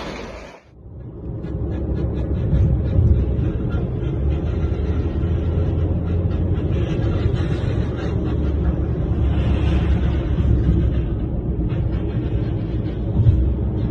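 Steady low rumble of road and wind noise from a car moving at freeway speed, starting about half a second in.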